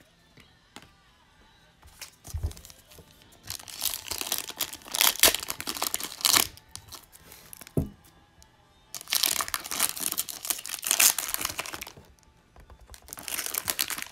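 Foil trading-card pack wrappers being torn open and crinkled by hand, in three bouts of loud crinkling with sharp tearing snaps and a couple of soft thumps on the table.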